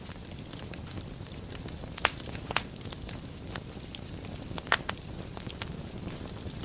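Wood fire in a fireplace crackling steadily over a low rumble of burning. It gives three sharper pops: two about two seconds in, half a second apart, and one more nearly five seconds in.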